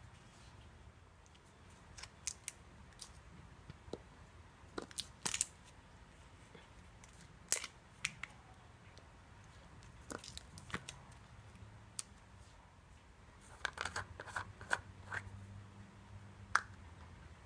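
Slime being pressed and stretched by hand, giving off scattered small clicks and pops, with a quick run of them near the end.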